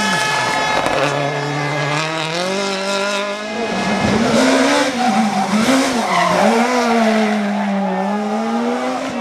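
Rally car engine at hard throttle: its pitch dips, climbs steadily for a couple of seconds, drops near the middle, then rises and falls again and again as the driver works the throttle.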